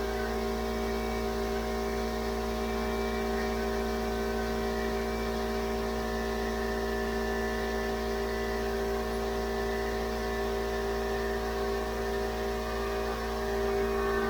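Steady electric motor hum with several fixed tones that holds unchanged throughout, the sound of shop machinery running.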